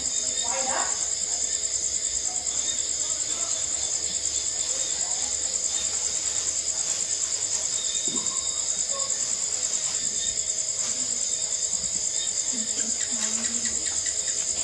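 Crickets chirping at night in a steady, high, rapidly pulsing trill.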